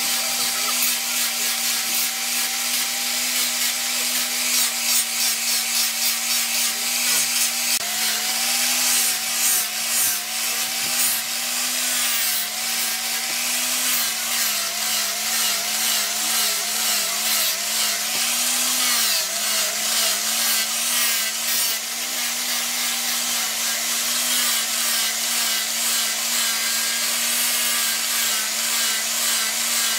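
Electric angle grinder with a sanding pad running steadily, a motor whine over the hiss of the abrasive rubbing on the knife's steel blade and wooden handle. For a stretch in the middle its pitch wavers and dips as the pad is pressed on harder.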